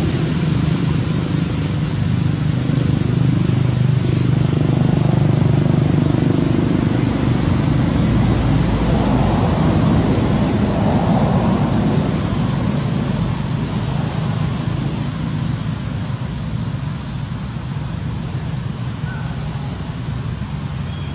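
Steady outdoor background noise: a low rumble that swells through the first half and eases toward the end, under a steady high hiss.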